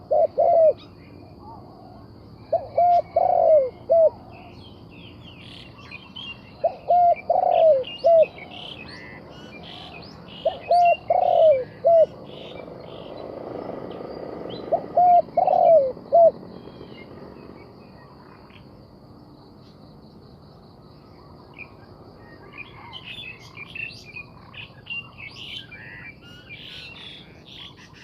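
Spotted dove cooing: phrases of several low, arched coo notes, one about every four seconds, stopping about sixteen seconds in. Smaller birds chirp high throughout and grow busier near the end, over a faint steady high tone.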